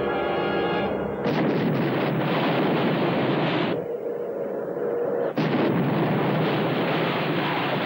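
Torpedo strike sound effects in a naval battle: a loud, rushing noise starts about a second in. A sharp blast about five seconds in is followed by a long, loud explosion noise.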